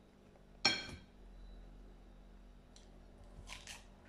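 A single sharp, ringing clink less than a second in, a metal paring knife knocking against the ceramic plate, followed by a few faint, short noises of handling and eating the peeled peach.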